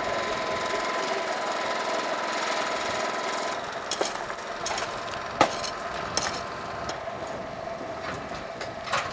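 A small engine running steadily, with a handful of sharp, irregular hammer blows from about four seconds in, the loudest about halfway through.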